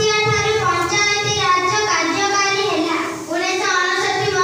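A young girl singing into a handheld microphone, holding each note for about a second, with a brief break about three seconds in.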